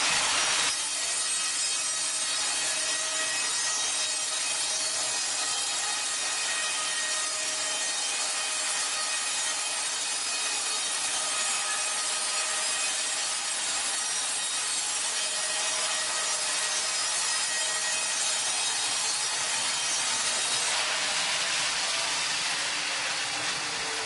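Wimmer band sawmill cutting lengthwise through a squared log: a steady hiss of the blade in the wood with faint thin whining tones, the hiss growing brighter near the end.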